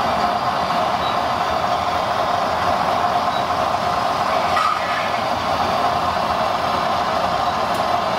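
Radio-controlled turntable-ladder fire truck running steadily as its ladder slews round: an even, continuous mechanical running noise.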